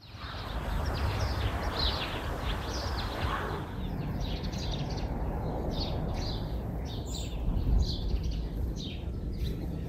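Small birds chirping, many short separate calls one after another, over a steady low outdoor rumble.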